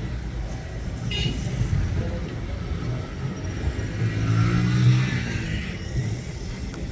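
Motor vehicle engine and road rumble, with an engine growing louder to a peak about four to five seconds in and then fading, and a brief sharp high sound about a second in.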